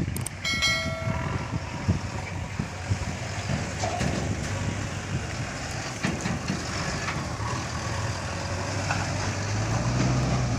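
Diesel engines of heavy construction machinery running, with scattered knocks and clanks. A short, steady horn-like tone sounds about half a second in, and a low engine hum becomes steadier and louder near the end.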